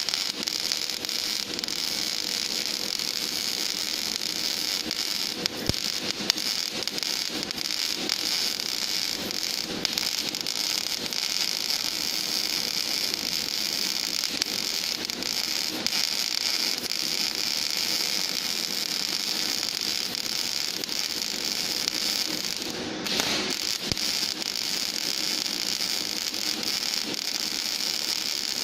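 Gas metal arc (MIG) welding arc running steadily: a continuous crackling hiss, briefly interrupted about 23 seconds in.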